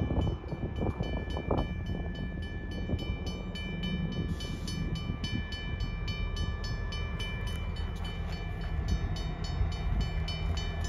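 Canadian Pacific freight train passing, its diesel locomotives and cars giving a steady low rumble.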